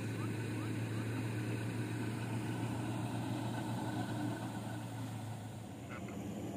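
A vehicle engine idling steadily with a low hum, which eases off about five and a half seconds in.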